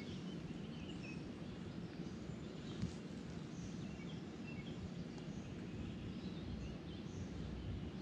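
Outdoor ambience of a steady low rumble with scattered short bird chirps, and a single faint click about three seconds in.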